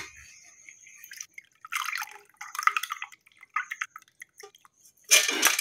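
Hand swishing through soaked rice in a metal bowl of water and lifting out handfuls of wet rice, water dripping and splashing off them, with a louder splash near the end.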